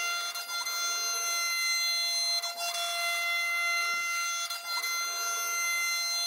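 CNC router spindle whining steadily at a high pitch while its end mill faces the top surface of a wooden blank, with the rushing noise of the cut rising and easing about every two seconds as the cutter passes across the wood.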